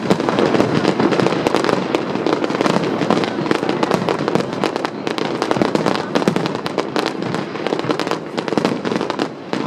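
Aerial fireworks going off in a dense, continuous barrage: rapid overlapping bangs and crackles.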